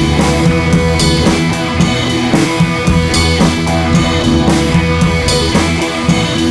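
Background music: a rock track with electric guitar and a drum kit keeping a steady beat.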